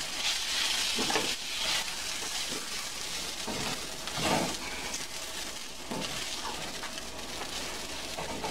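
Rice, onions and marinade sizzling in a stainless steel skillet as they are stirred with a wooden spoon: a steady frying hiss with irregular scraping strokes of the spoon through the grains. The rice is being sautéed in the marinade before the broth goes in.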